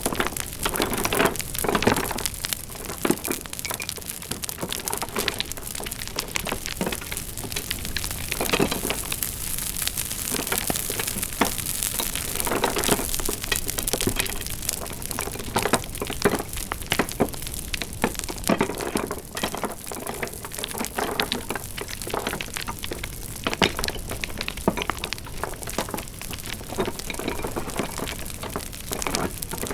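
Wood fire crackling: a steady hiss with many irregular sharp pops and snaps.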